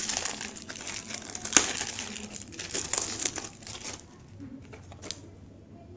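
Thin clear plastic packaging sleeve crinkling as it is pulled off a keychain, dense for about four seconds with one sharp tick partway through, then only faint rustles.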